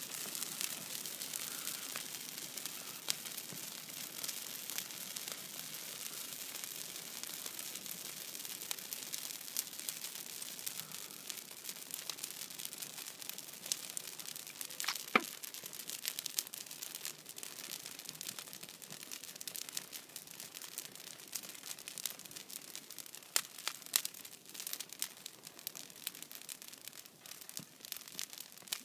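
Christmas tree burning: a steady hiss of flames with scattered sharp crackles and pops, and one louder pop about halfway through.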